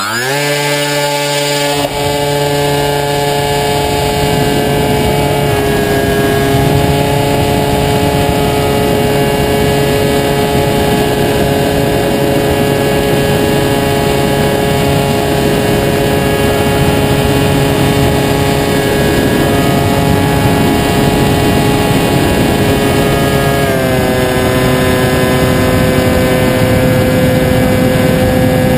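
A radio-controlled model airplane's motor and propeller run up quickly to a steady, loud drone. The pitch steps down a little twice as the throttle is eased back.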